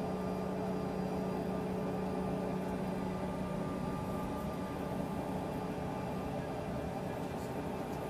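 Steady cabin drone of an Embraer ERJ145's rear-mounted Rolls-Royce AE 3007 turbofans at low taxi power: an even hum with a few faint steady whining tones, not rising.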